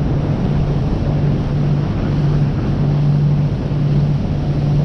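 A small fishing boat's outboard motor running steadily under way, a constant drone, with water rushing along the hull and wind on the microphone.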